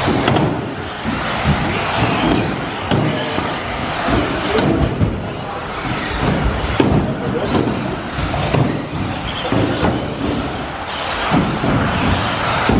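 Several 1/10-scale electric off-road RC buggies, Team Associated B5M among them, racing on an indoor carpet track: electric motors whining up and down in pitch with the throttle, mixed with tyre and chassis noise.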